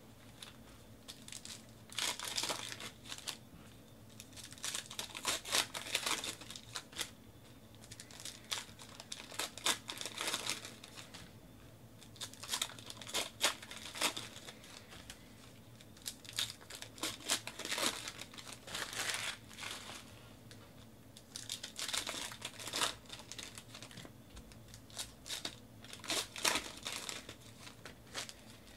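Wrappers of 2018 Panini Classics football card packs being crinkled and torn open by hand, in bursts of crackling every three to four seconds as one pack after another is opened.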